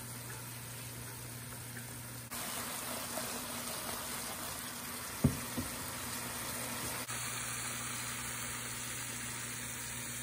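Chicken in a thick masala sauce sizzling and bubbling in a frying pan over medium-high heat, a steady hiss that gets louder after about two seconds. Two sharp clicks a moment apart come about five seconds in.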